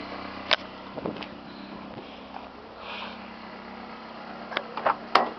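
Toyota Corolla's four-cylinder engine idling, heard at the tailpipe as a steady low exhaust hum, with a few short knocks, three of them near the end.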